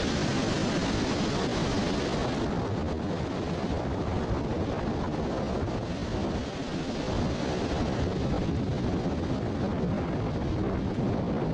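Steady wind rumbling on the microphone over the surf of a beach, heaviest in the low range; the higher hiss thins out about two and a half seconds in.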